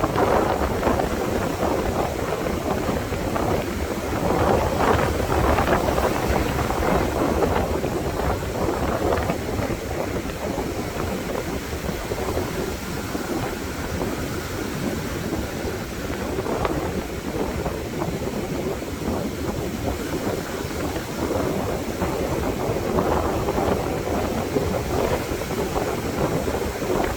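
Strong wind buffeting the microphone, with ocean surf breaking and washing in surges every few seconds.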